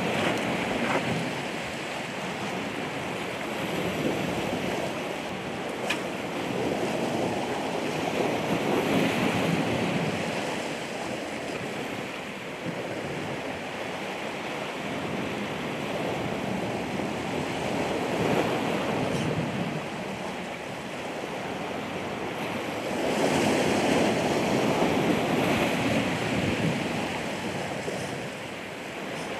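Ocean surf: waves breaking and washing in, the rush swelling and easing every several seconds, loudest about three quarters of the way through.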